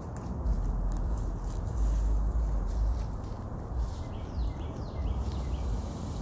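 Footsteps pushing through undergrowth and dry twigs, with irregular crackles and a heavy low rumble on the phone microphone. A few short chirps, like a bird's, come about four seconds in.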